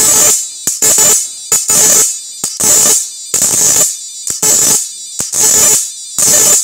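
Electric arcing at the electrode of a homemade 7000 W IGBT electric fishing machine, fired in loud bursts of harsh buzzing about half a second long, roughly once a second, with short blips between.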